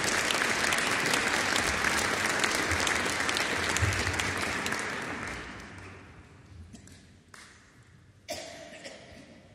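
Concert-hall audience applauding, the applause dying away about five to six seconds in. A few isolated clicks and one short sharp sound follow near the end.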